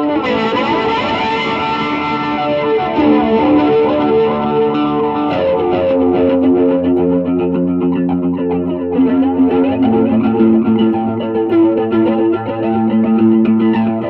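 Stratocaster electric guitar playing held notes and chords through a 2009 reissue A/DA Flanger, its tone sweeping up and down. It runs into a Peavey Classic 50 amp with light overdrive, and the MXR Carbon Copy analog delay is switched on.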